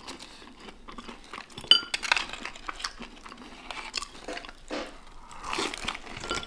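Close-up eating sounds: chewing and crunching on fried food, with small clicks and rustles of handling food and packaging. One sharp, ringing clink comes a little under two seconds in.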